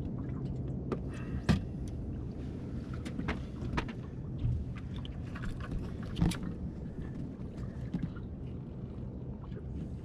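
Small fishing boat on the water: a steady low rumble with scattered sharp knocks and clicks, the loudest about one and a half and six seconds in.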